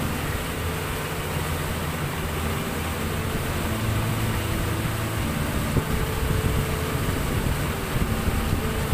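Boat engine running steadily under way, a low hum under the rush of wind and churning wake water.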